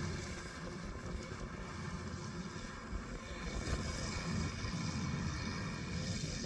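Kubota DC-108X rice combine harvester running steadily.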